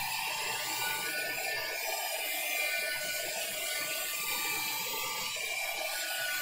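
Handheld craft heat tool running steadily, its fan blowing hot air over wet varnish on paper: an even rushing whir with a few faint steady tones in it.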